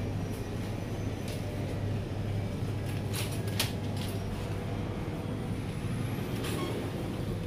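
Steady low mechanical hum, with a few sharp clicks about three seconds in and another one near the end.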